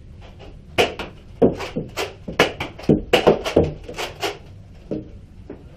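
An irregular run of sharp knocks and clacks, about a dozen of them, starting about a second in and stopping a little after four seconds.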